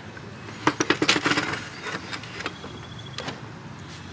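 Pine board being shifted into place on a miter saw, knocking and rattling against the saw's table and fence: a quick cluster of clicks and knocks about a second in, then a few lighter taps.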